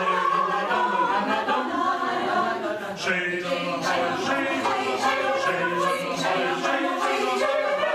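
Mixed choir of men's and women's voices singing a Hungarian folk song a cappella.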